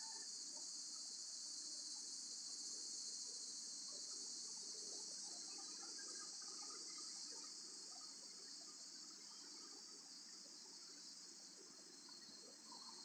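Faint, steady, high-pitched chorus of insects trilling, with a soft low background hum.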